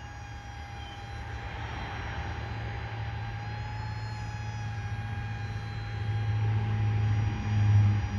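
RC paramotor's motor and propeller giving a steady whine that rises slightly in pitch about halfway through, over a low rumble that swells near the end.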